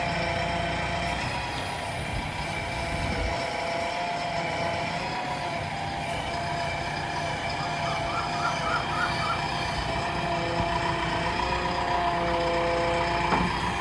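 Diesel engine of a JCB 3DX backhoe loader running steadily under a low rumble, with steady whining tones that waver slightly in pitch.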